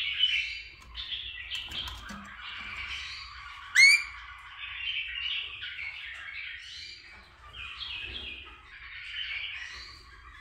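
Rainbow lorikeet chattering with a rapid stream of harsh squawks and chirps, broken about four seconds in by one loud, sharply rising call.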